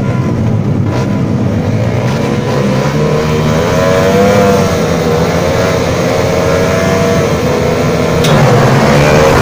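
A pack of dirt-bike engines running together on a race start line, revved up and down so their pitches waver and climb; the revs and loudness rise further near the end.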